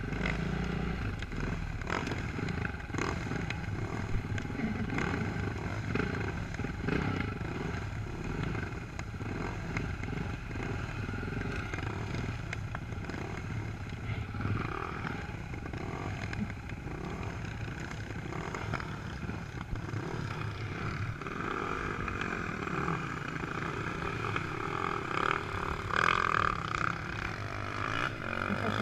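Off-road engines of a quad and dirt bikes running at trail speed over rough dirt, with clatter from the bumpy ground. In the last several seconds a nearby engine grows louder and higher as the machines draw up alongside each other.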